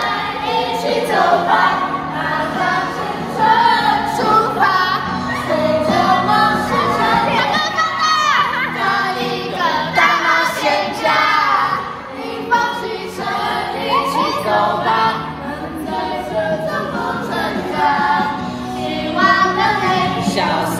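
A Chinese-language song with sung vocals and instrumental backing, at times with several voices singing together.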